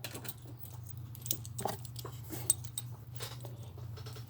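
Small plastic parts of a remote-control car clicking and rattling as they are handled, several light ticks over a steady low hum.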